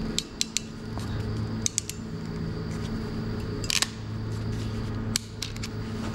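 Sharp metallic clicks of crimping pliers closing on a spark plug lead terminal, squeezing its tabs into the lead. There are several scattered clicks, a few in quick succession, over a steady low hum.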